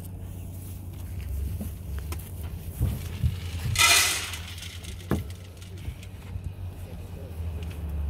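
Liquid poured from a galvanised metal pail into a hanging metal bucket in one short splash of about half a second, a little before halfway. A few light clanks of the metal buckets and a steady low rumble run underneath.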